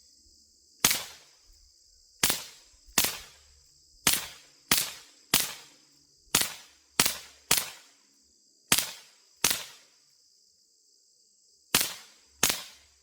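Suppressed .22 LR pistol shots from a Taurus TX22 fitted with a Dead Air Mask suppressor: about thirteen sharp cracks at an uneven pace, each trailing off briefly. The shooter calls them quiet. A steady high insect chirring runs underneath.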